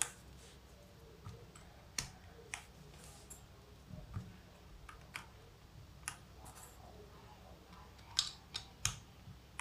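Plastic keycaps being pushed onto a mechanical keyboard's switches: scattered sharp clicks a second or more apart, with three quick clicks near the end.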